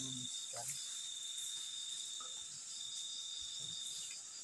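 Crickets and other night insects chirping steadily in a dense chorus, with a pulsing high trill. A couple of faint short rustles sound in the first half.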